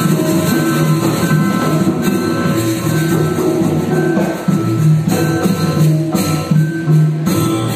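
Balinese traditional ensemble music for a pupuh ginanti performance: percussion with pitched instruments, a short high note repeating at an even pace over sustained lower notes.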